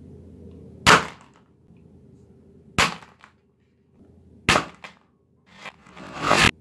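Toy dart gun firing: three sharp, gunshot-like shots about two seconds apart, then a small pop and a last, longer shot that swells and cuts off suddenly near the end.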